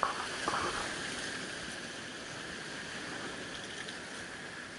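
Steady wash of sea surf against a rocky shore, with a few light clicks in the first half second.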